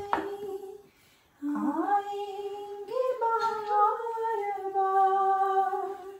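A woman singing a slow tune unaccompanied, in long held notes, with a short pause about a second in.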